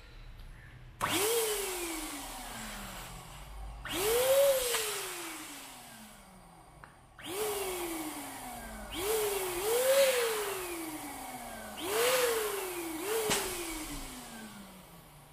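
Electric balloon pump's blower motor pushing air into a latex balloon on its nozzle in about seven short bursts, as the touch-activated nozzle is pressed again and again. Each burst is a rush of air with a whine that jumps up in pitch at once and then sinks slowly. A sharp click comes near the end.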